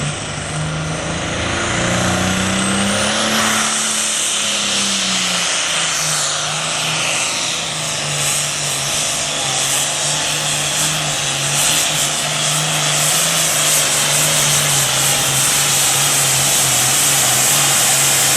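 Super farm class pulling tractor's engine running hard at high revs as it drags the weight-transfer sled down the track, loud and steady. Its pitch rises a couple of seconds in, drops back, then holds steady.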